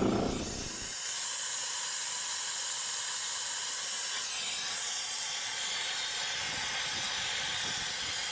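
Steady hiss of pressurized gas escaping at a hose fitting on an air-conditioner compressor's refrigerant line.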